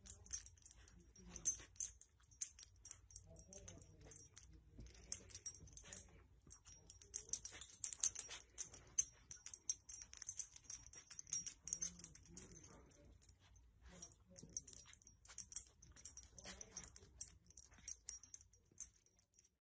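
Faint, irregular rustling and crackling of a soft blanket as a dog nuzzles and pushes it with its muzzle.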